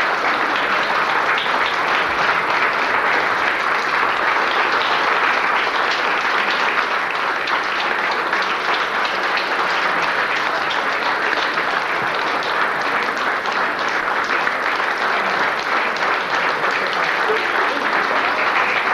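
Audience applauding steadily: dense, even clapping from many hands.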